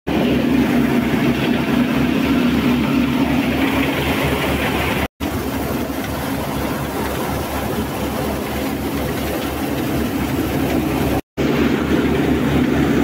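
A tractor-driven wheat thresher running with a loud, steady mechanical drone as it processes wheat. The sound cuts out for a split second twice, about five and eleven seconds in.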